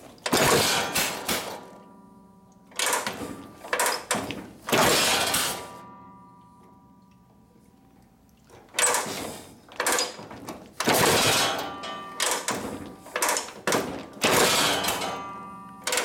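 Harley-Davidson 45 cubic-inch flathead V-twin running rough, revving up and falling back in uneven bursts. It nearly dies for a couple of seconds in the middle before picking up again, and will not run smoothly however it is adjusted.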